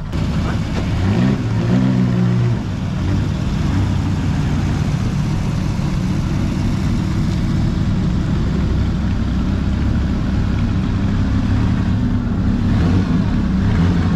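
Vintage Bugatti Grand Prix-style racing car engines running. One revs up as the car pulls away, its pitch rising twice in the first two seconds, then the engines settle into a steady low-rev note as the cars move off.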